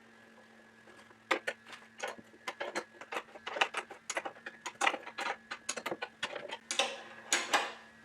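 Irregular clicks and knocks of wooden tail vise parts being fitted together by hand, several a second, starting about a second in and stopping just before the end.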